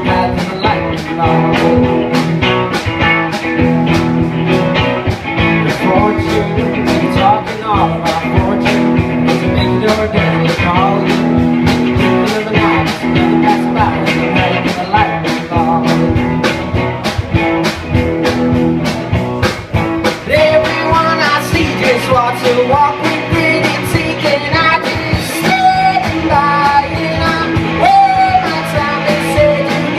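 Live rock band playing an upbeat song: guitars and bass over a steady, regular drum beat.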